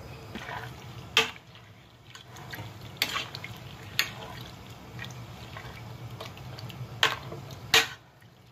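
A metal spoon stirring chickpeas, onion and tomato in water inside a pressure cooker: liquid sloshing and splashing, with about five sharp clinks of the spoon against the side of the pot.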